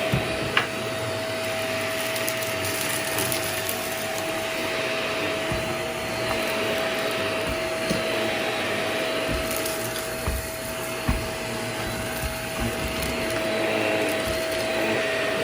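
Vacuum cleaner running steadily with a constant whine, picking up spilled chips, with a few brief clicks and knocks scattered through.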